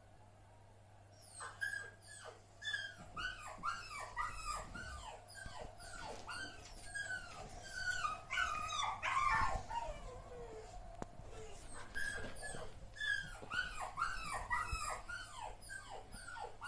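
Puppy whimpering: a quick run of short, high whines that fall in pitch, easing off briefly past the middle and then starting again.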